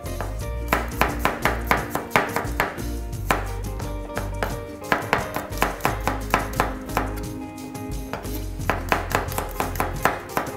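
A chef's knife slicing carrot and thinly slicing garlic cloves on a plastic cutting board. The blade knocks on the board about five times a second, in runs of one to two seconds with short pauses between.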